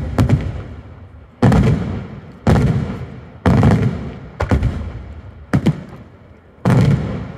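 Aerial fireworks shells bursting in a daytime display: six loud bangs about a second apart, with a couple of sharper cracks close together near the end. Each bang is followed by a low rolling echo that dies away before the next.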